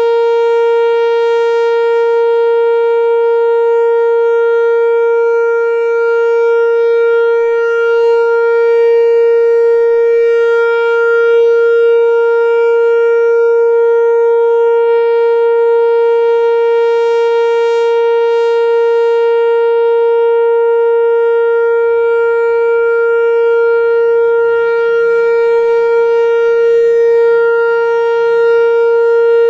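Whelen WPS-4004 electronic outdoor warning siren sounding a loud steady alert tone: one unchanging pitch with many overtones, held without a break.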